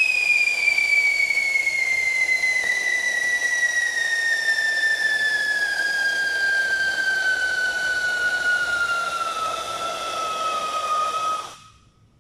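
Whistling firework burning on the ground: one long, loud, shrill whistle that slides slowly lower in pitch and cuts off suddenly near the end.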